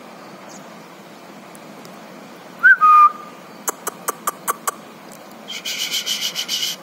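A person whistles one short note that rises and then holds steady for about half a second. About a second later come about six sharp clicks. Near the end there is a second or so of rapid raspy squeaking.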